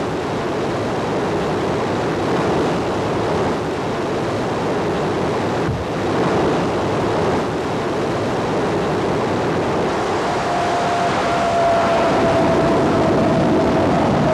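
Jet engines of a jet-powered drag-racing truck running under power, a loud steady rush of noise. From about ten seconds in, a high whine joins it and slowly falls in pitch.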